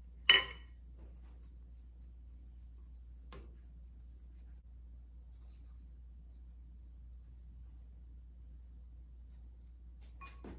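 Faint rustling of a spring-roll wrapper being folded and rolled by gloved hands on a plastic cutting board. A sharp clink of the metal measuring scoop against a glass bowl comes just after the start, a lighter click about three seconds in, and a ringing glass clink near the end as the pastry brush goes into the bowl of beaten egg.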